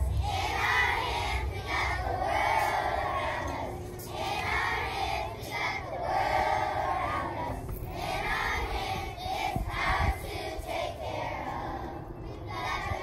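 A group of young children singing or chanting together in unison, in short repeated phrases.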